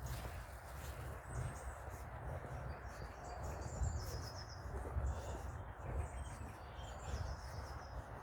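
Woodland songbird singing short phrases of quick, high, descending notes, one about every three seconds, over a steady low rumble.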